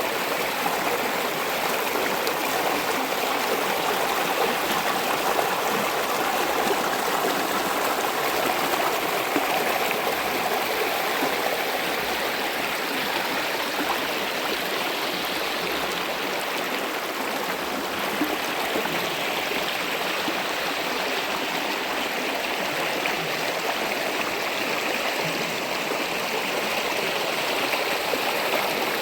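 Flowing stream water, a steady unbroken rush with no pauses or distinct splashes.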